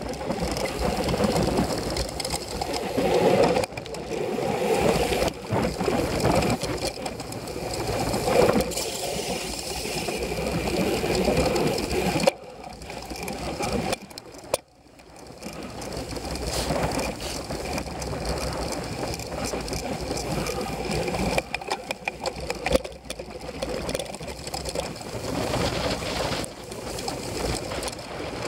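Cyclocross bike ridden fast over bumpy grass: a steady rumble with dense rattling from the bike and its mounted camera. It drops away briefly about twelve seconds in and again about two seconds later.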